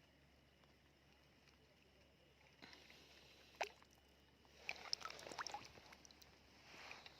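Faint scattered splashes and clicks in shallow seawater after a couple of seconds of near silence, busiest about five seconds in.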